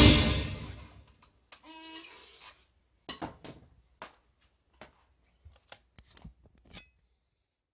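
The last cymbal crash of a Roland electronic drum kit dies away over the first second. Then come a short pitched sound and about a dozen scattered light clicks and taps from sticks and drum hardware being handled.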